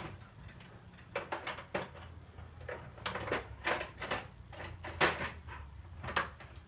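Clicks, knocks and light scraping of a small metal box inside the oscilloscope being worked open by hand, in uneven clusters with the loudest knock about five seconds in, over a low steady hum.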